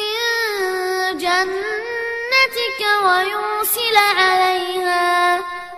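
A boy's voice reciting the Quran in melodic murattal style, drawing out long held notes that bend slowly in pitch, fading away near the end as the phrase closes.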